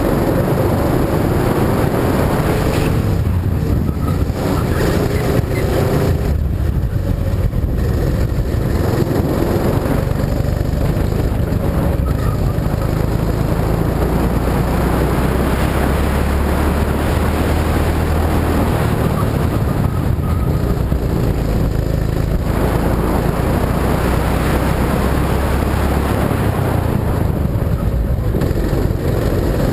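Go-kart engine running on track, its pitch rising and falling at times, with wind noise on the onboard camera's microphone.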